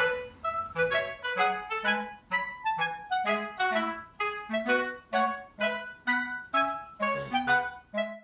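Background music: a light melody of short, separate notes, about two or three a second.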